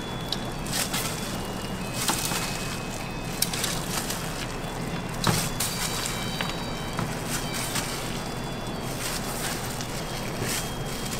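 Sticky dough being pulled and scooped out of a large stainless-steel mixer bowl, with scattered wet crackles, clicks and knocks of the metal bowl over a steady kitchen hum. The sharpest knock comes about five seconds in.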